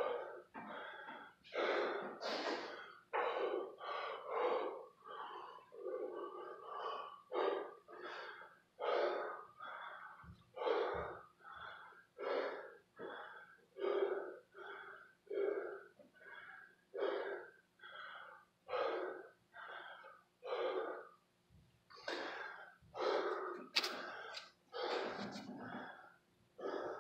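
A man breathing hard and loud, quick heavy breaths in and out about once a second as he recovers after a set of kettlebell swings. A single sharp click near the end.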